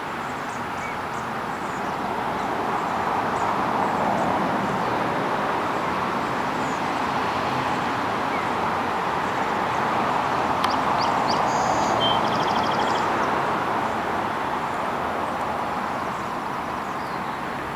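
Steady rush of road traffic that swells and fades as vehicles pass, with a short, rapid high trill from a small bird about eleven to thirteen seconds in.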